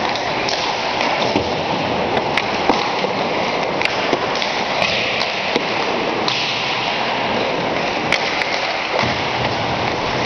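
Ice hockey warm-up on a rink: a steady wash of skate and arena noise, with sharp cracks of pucks off sticks, pads and boards every second or two.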